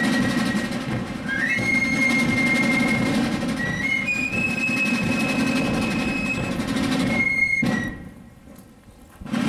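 Fife and drum corps playing: wooden fifes hold long, high notes that step upward in pitch, with drums beneath. The notes cut off together about two seconds before the end.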